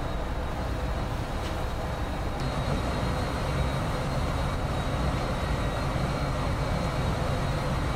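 Steady rumble of wind and sea on the open deck of a warship under way, heaviest in the low end, with a faint steady high whine over it.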